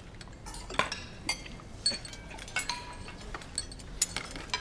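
Cutlery clinking against plates and bowls as several people eat: scattered sharp clinks, about one or two a second, a few of them ringing briefly.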